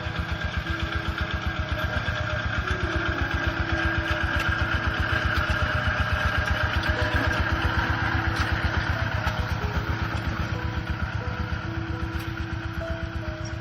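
The single-cylinder diesel engine of a Siam Kubota NC 131 tractor runs steadily with an even, rapid chug.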